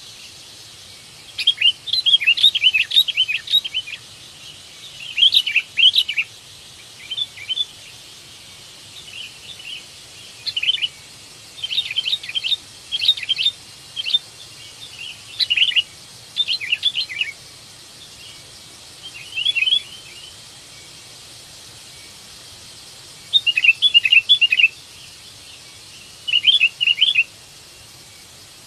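Sooty-headed bulbul (kutilang) calling: bursts of quick, bright chirping notes, each lasting a second or two, repeated with gaps of a few seconds between them. It is a call for a companion, of the kind used to lure wild bulbuls.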